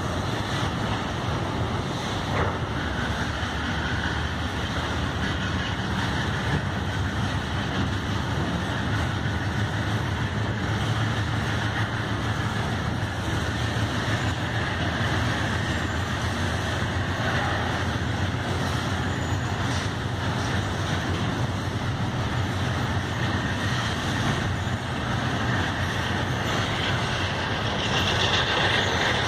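Empty bauxite freight wagons of a passing freight train rolling along the rails: a steady rumble of steel wheels on track, getting a little louder near the end as the nearer wagons go by.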